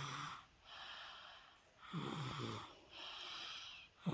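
A toddler breathing noisily in sleep, congested from a cold. Each breath is a raspy rush of air followed by a low snoring grunt that falls in pitch, about every two seconds.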